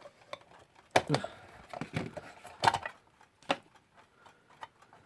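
A few sharp clicks and knocks of a plastic clock crystal being worked off its bezel, over the faint ticking of a mechanical clock.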